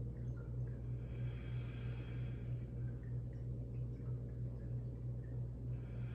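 Quiet room with a steady low hum, and a soft, slow breath heard about a second in and again near the end as she breathes deeply through the nose in child's pose.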